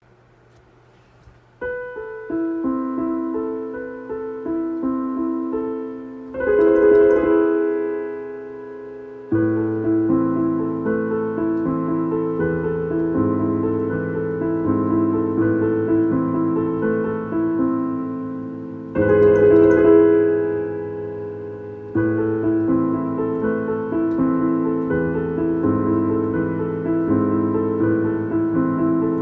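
Solo piano playing an original instrumental piece of repeating broken chords, beginning about a second and a half in. A loud accented chord with a sharp attack breaks in about six seconds in and again near nineteen seconds, each ringing out and fading before the pattern resumes with deeper bass notes under it.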